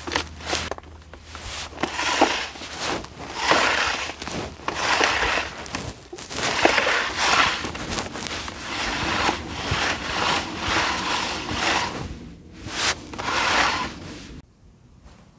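Garden hose being pulled off a hose reel in a dozen or so repeated pulls, each one a rustling swish of the hose sliding off the reel and over dry grass, with a few small clicks in between. The pulls stop about a second before the end.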